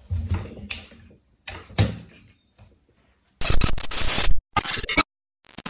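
Folding stock of a Victrix Gladio V rifle swung open and locking into place: a few metallic clicks and thunks. About three and a half seconds in, a loud noisy transition sound effect lasting about a second, then a shorter burst.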